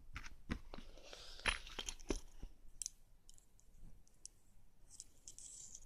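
Metal fidget spinner handled and flicked into a spin: light metallic clicks and taps, a few sharper ones in the first two seconds or so, then faint scattered ticks.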